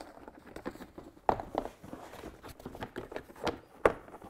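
The velour-covered insert piece of a truck door panel being lifted out and handled, making light rustling and a few sharp knocks. The loudest knocks come about a second in and near the end.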